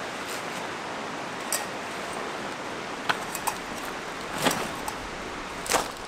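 Backpack gear being handled and set down on loose river stones: a few scattered sharp clinks and knocks, the loudest two near the end, over a steady background hiss.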